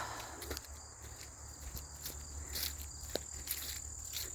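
Insects trilling in one steady high tone, with scattered footsteps crunching on the forest floor.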